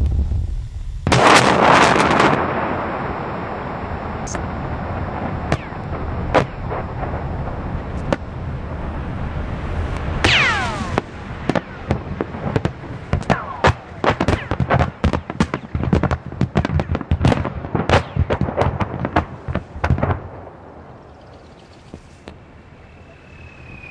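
Blast of a very large explosion, about 100 tonnes of explosive. It starts sharply, grows louder about a second in and settles into a long rumble. From about ten seconds in comes a rapid, uneven run of sharp cracks and bangs with a few falling whistles; the run stops about twenty seconds in, leaving wind on the microphone.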